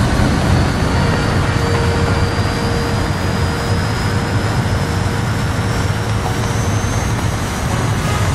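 Jet blast from an Aero L-39 Albatros trainer's turbofan engine running at high power: a loud, steady rushing roar with a thin high whine that climbs slowly in pitch.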